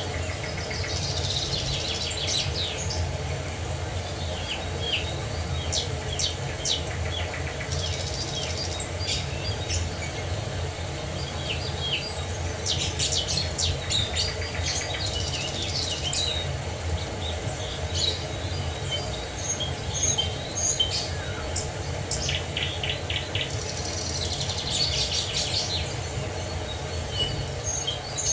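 Many birds singing and calling together, with short chirps, whistles and fast trills coming and going, over a steady low rumble.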